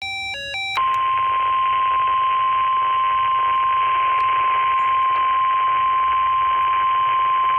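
NOAA Weather Radio 1050 Hz warning alarm tone: one steady, loud high tone over radio receiver hiss, announcing a severe thunderstorm warning. It starts after a quick run of short stepped beeps in the first second.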